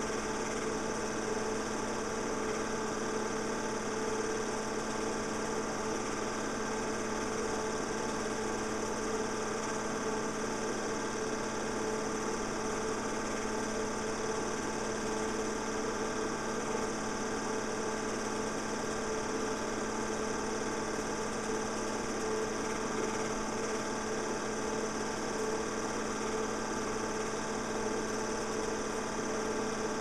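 Steady mechanical hum of a film projector running, unchanging throughout, with no other sounds.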